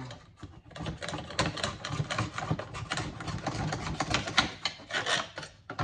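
Fabric being scraped off a painted aluminum panel from a scrapped equalizer: rapid, irregular scratching and clicking strokes.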